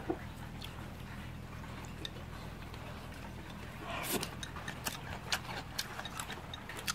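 Scattered light clicks of chopsticks against ceramic bowls and a clay pot, more frequent from about four seconds in, over a steady low hum.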